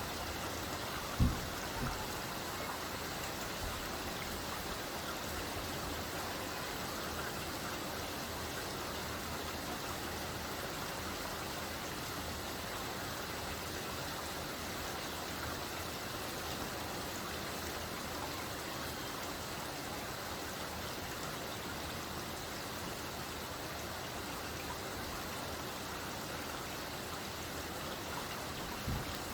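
Steady light rain falling, an even hiss of drops with no thunder. One short low thump sounds about a second in.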